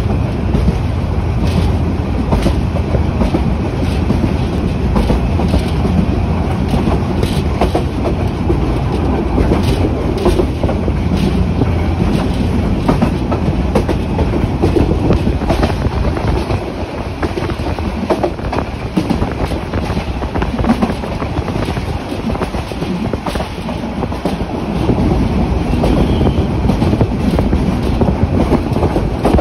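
Passenger train running, heard from inside the carriage: a steady rumble with irregular clacks from the wheels over the rail joints.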